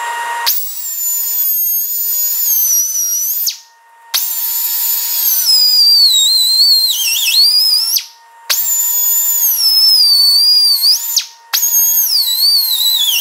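Pneumatic cutoff wheel cutting into the steel inner race of a tapered roller differential side bearing, in four runs with short breaks. The high whine drops in pitch as the wheel bites into the race and rises again as it eases off. The cut scores the press-fit race so it can be cracked off with a chisel.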